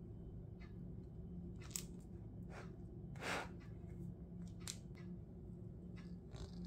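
Kitchen knife slicing through a chilled chocolate cake's firm chocolate top and crumb base. There are two sharp cracks with a longer scrape between them, over a faint steady low hum.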